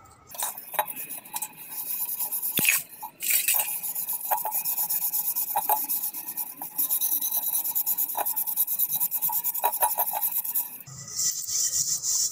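Copper pot being scrubbed with salt and lemon using a scouring pad and fingers: a fast, gritty scratching in quick rubbing strokes that stops briefly about three seconds in. The salt and lemon are lifting tarnish off the copper.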